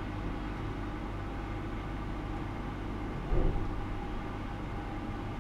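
Steady low electrical hum from the running measurement equipment, with a few faint steady tones above it, broken once by a short low thump about three seconds in.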